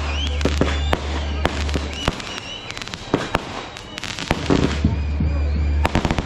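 Fireworks going off in a rapid string of sharp bangs and crackles, mixed with short whistling tones. The bangs thin out for a couple of seconds in the middle, then pick up again near the end.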